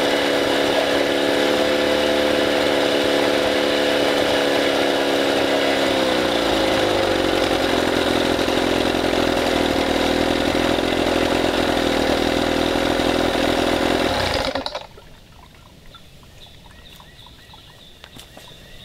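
Chrysler Sea King two-stroke outboard motor running with its lower unit in a water-filled test barrel. About six seconds in its pitch drops as it slows, and about fifteen seconds in the engine is shut off and stops abruptly.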